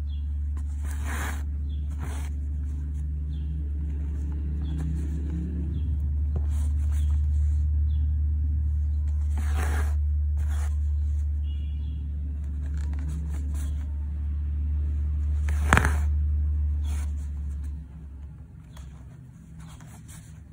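Embroidery needle and thread drawn through cotton fabric stretched in a wooden hoop, several brief pulls, over a steady low rumble that fades out near the end.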